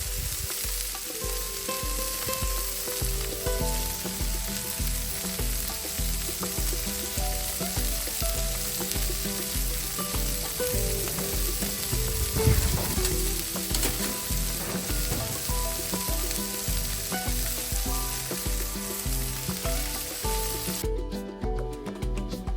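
Ground beef sizzling on a Blackstone flat-top griddle, briefly louder about halfway through, over background music with a steady beat. The sizzle cuts off suddenly near the end while the music carries on.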